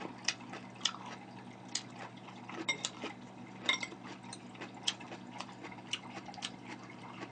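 Metal chopsticks clicking together and tapping a ceramic bowl while picking up salad: irregular light clicks, a few ringing briefly.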